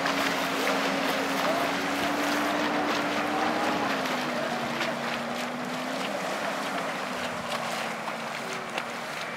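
Mitsubishi Montero's 3.2-litre turbodiesel engine running under load with a steady drone that drops a little in pitch about four seconds in, its wheels churning through flooded mud with a continuous wet splashing hiss.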